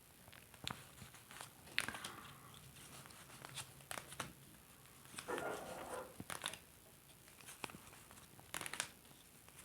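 Playing cards handled and laid out on a table: a Lenormand deck searched through card by card, with irregular soft clicks and paper rustling.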